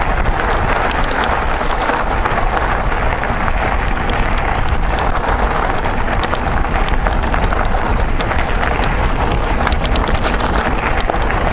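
Mountain bike being ridden on a stone track: a steady rush of tyres on loose gravel and wind buffeting the microphone, with frequent small clicks and rattles of stones and the bike.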